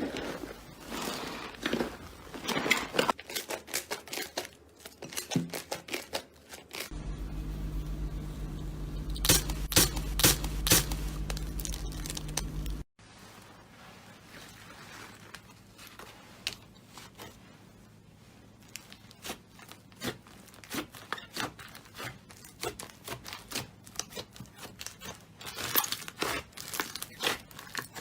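Slime being squeezed, poked and stretched by hand, with quick crackly pops and crinkling. In one short clip about a third of the way in, a steady low hum runs under the popping.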